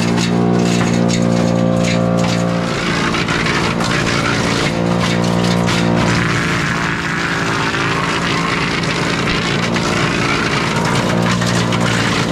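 Tractor engine driving a Split-Fire wood chipper. The engine runs steadily, and twice, from about 3 to 5 seconds in and again from about 6 to 11 seconds in, a harsher chipping noise rises and the engine note weakens as wood is fed through and loads it down.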